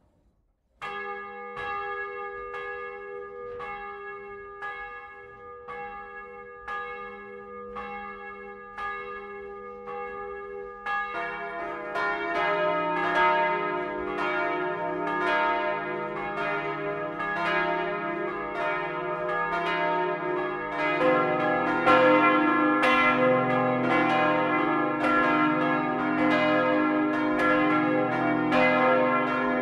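Swinging church bells cast in 1952 by Karl Czudnochowsky of Erding, heard up close in the bell tower. One bell starts striking about a second in, at a steady rate of more than one stroke a second. A second, lower bell joins about eleven seconds in and a third, lower still, about twenty-one seconds in, building up the full peal, louder and denser.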